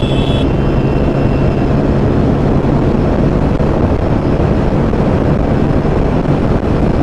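Wind rushing past the rider at about 110 km/h, over the steady drone of a TVS Apache RTR 160 4V's single-cylinder engine held at full throttle in top gear. The engine tone fades into the wind after two or three seconds.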